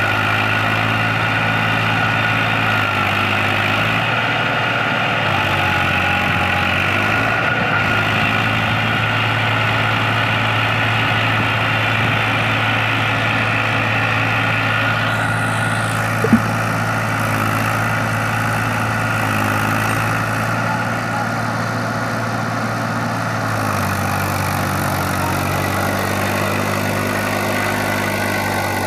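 Eicher tractor's diesel engine running steadily at a low, even speed, with the tractor stuck in mud; its pitch eases down slightly near the end. A single sharp knock sounds about halfway through.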